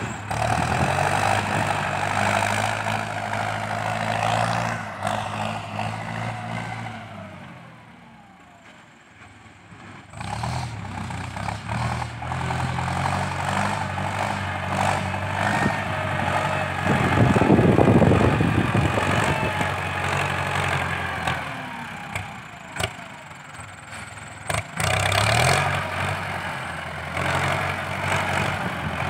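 Ford 6640 tractor's diesel engine working under load as it pushes soil with a front blade and drags a disc harrow. The engine note rises and falls with the tractor's distance, dropping away about seven seconds in and swelling loudest a little past halfway.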